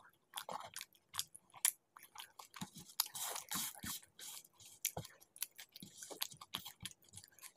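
Close-miked chewing of chicken curry and flatbread, with many short wet mouth clicks and smacks. There is a longer rustling stretch about three seconds in, as a hand works over the plate.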